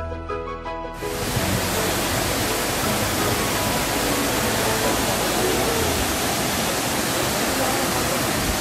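Loud, steady roar of a waterfall pouring into a pool, starting about a second in.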